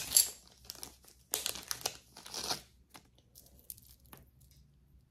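Wrapping material crinkling as it is handled while a piece of jewelry is unwrapped, in three short bursts over the first three seconds, followed by a few faint clicks.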